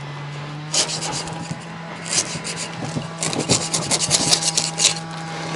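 Hook-and-loop (Velcro) fastening on a saddle panel being prised apart with a wooden spatula, giving a crackly tearing rasp. Two short rips come first, then a longer run of quick tearing crackles about three seconds in.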